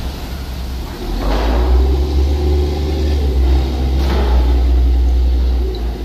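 A fishing boat's engine running as it motors into harbour close by. It is a heavy, steady low rumble that gets louder about a second in.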